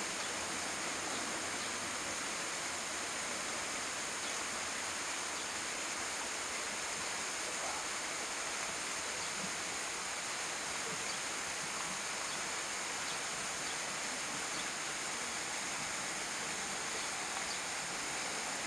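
Steady outdoor ambience of a wooded river valley: an even hiss with a constant high-pitched drone over it, unchanging throughout; no train is audible.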